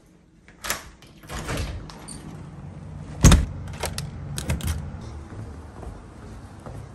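Door handling at a house door: a few light latch clicks, then the door shutting with a loud thump about three seconds in, followed by keys jangling and clicking as the doorknob is locked.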